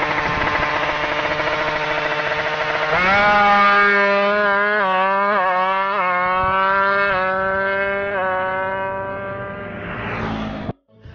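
Drag-tuned motorcycle engine revving hard and accelerating. Its pitch climbs and drops again several times as it shifts up through the gears, then it fades away and cuts off suddenly near the end.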